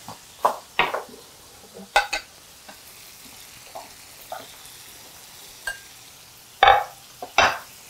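Lemon pieces sizzling faintly in a frying pan, with a few light clinks of dishes. Near the end a plate is set down on the stone counter with two sharp knocks, the loudest sounds here.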